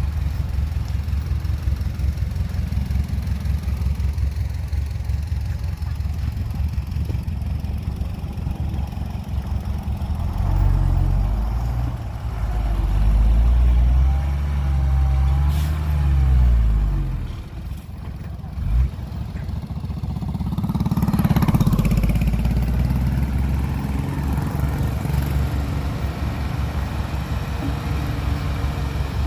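Heavy diesel engine idling low. It revs up and back down from about ten seconds in, and swells again around twenty seconds, with a single sharp knock just before the second rise.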